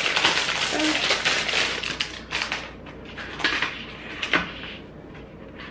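Plastic packaging crinkling and rustling as it is pulled open and handled, loudest for the first couple of seconds, then quieter scattered clicks and rustles as small items are set down.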